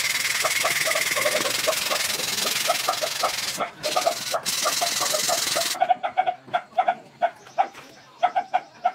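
Abrasive cloth rubbing along a metal tube, a steady hiss that stops abruptly about two-thirds of the way through. Birds call in short, repeated notes throughout and are heard clearly once the rubbing stops.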